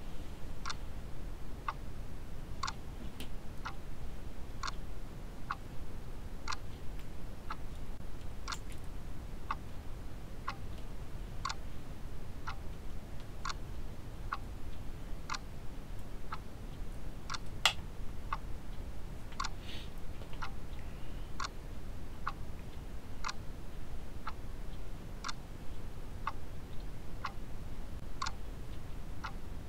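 Clock ticking steadily, about three ticks every two seconds with alternate ticks brighter, over a faint low room hum. One sharper click lands a little past the middle.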